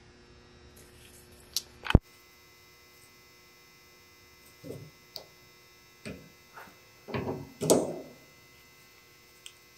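Needle-nose pliers working a steel cotter pin through a castle nut on a wheel spindle: a sharp click about two seconds in, then a scatter of light metallic ticks and scrapes. A steady electrical hum sits under it throughout.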